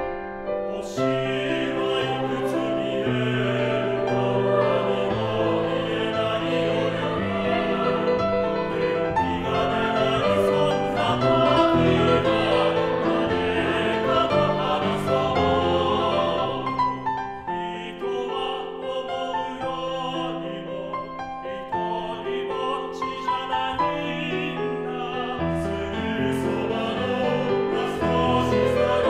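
Mixed four-part choir singing a Japanese pop song in harmony with piano accompaniment. The voices come in about a second in over the piano, ease into a softer passage past the middle, and swell again near the end.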